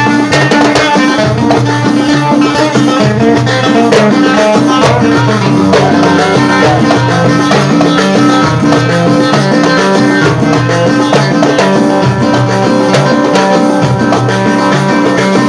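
Instrumental Yemeni sharh dance music: drums beating a steady rhythm under sustained melodic instruments, with no singing.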